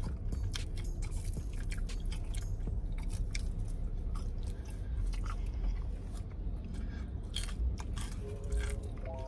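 Close-up chewing and biting of fried chicken wings, a run of small irregular crunches and mouth noises.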